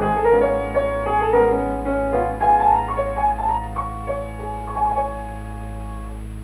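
Background piano music playing a lively melody of quick notes, thinning to a quieter held chord near the end, over a steady low hum.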